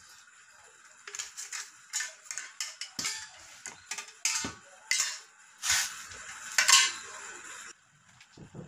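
Aluminium square tubes being handled and set down, clinking and clattering against each other in a string of light metallic knocks, the loudest about three quarters of the way through.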